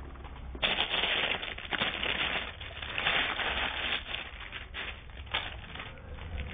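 Crinkling and rustling handling noise with many small clicks, starting suddenly about half a second in and thinning out toward the end, over a low steady hum.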